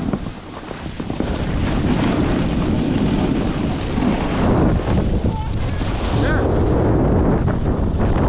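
Wind rushing over the microphone of a camera moving fast down a slope, mixed with the scrape of edges carving on packed, groomed snow. The rush dips briefly about half a second in.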